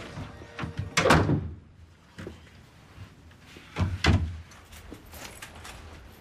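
Two heavy door bangs about three seconds apart: a door slammed shut, then a second hard thump against it.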